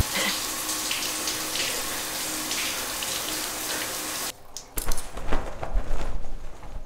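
A steady rush of water that cuts off suddenly about four seconds in, followed by a few scattered dull knocks and thuds.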